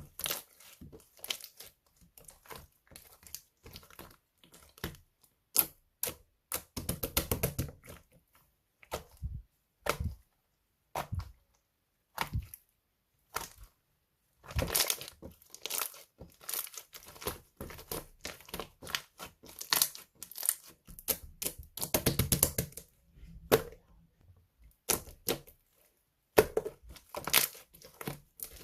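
Clear glitter slime being squeezed and stretched by hand, crackling with many sharp pops from trapped air. The pops come in bursts, thickest in two dense runs about a quarter and three quarters of the way through, with short pauses between.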